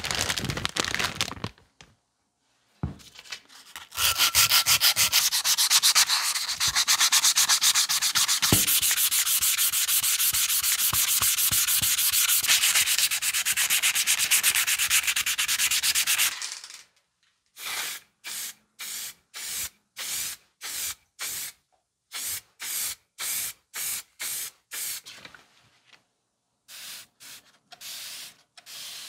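Sandpaper rubbed by hand over the painted body of a DOKU AA-1.3B air hammer: a long run of fast, even sanding strokes, preceded by a brief rustle of a plastic zip bag. After a short pause comes a row of short separate hissing strokes with brief gaps, with a spray bottle spritzing water for wet sanding near the end.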